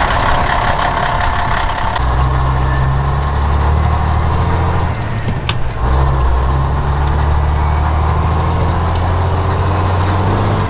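Cab-over semi truck's engine running under way, heard from inside the cab as a steady low drone. About halfway it dips briefly with a single click, then carries on.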